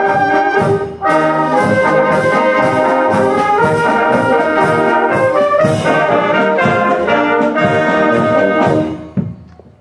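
Fanfare band of brass and saxophones playing together, the music stopping about nine seconds in and dying away.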